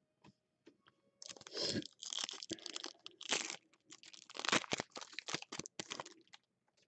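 A foil trading-card pack wrapper being torn open and crinkled by hand. It is a run of crackling and sharp snaps starting about a second in and stopping just before the end.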